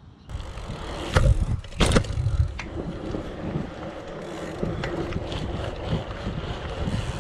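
Felt BMX bike being ridden on an asphalt street: tyres rolling with small clicks and rattles from the bike, and wind rushing over the microphone, starting suddenly just after the start. Two sharp knocks stand out, about one and two seconds in.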